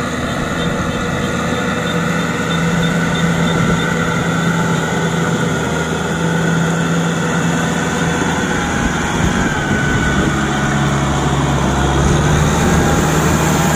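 Kubota M6040SU tractor's diesel engine running steadily under load while driving a rotary tiller through wet paddy soil. The engine note drops slightly about ten seconds in.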